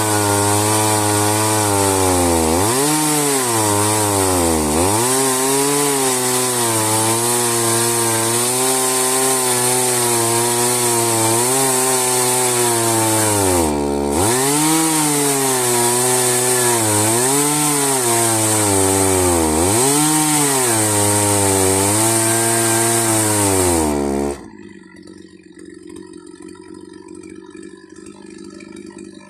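Chainsaw mounted in a homemade Alaska-style mill, ripping lengthwise through a log to cut a board. The engine runs near full throttle, and its pitch sags and recovers again and again as the bar loads up in the cut. About 24 seconds in, the loud sawing cuts off suddenly, leaving a much quieter low hum.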